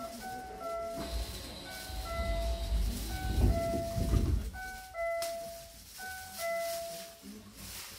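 Door-closing chime of a Hankyu 9000-series train: a falling two-note chime repeated five times, about every second and a half. Under it the doors slide shut with a low rumble and close with a thud about four seconds in.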